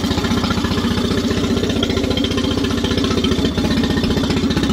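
Mercury four-stroke outboard motor idling steadily at about 840 rpm, running smoothly just after its annual service.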